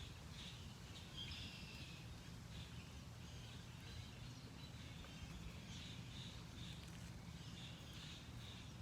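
Faint birds calling: many short, high chirps scattered irregularly, with one longer call just after a second in, over a low steady rumble.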